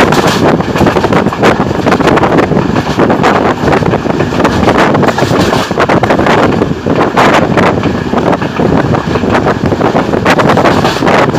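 Loud wind rushing and buffeting on a microphone held out of a moving passenger train's window, mixed with the train's running noise.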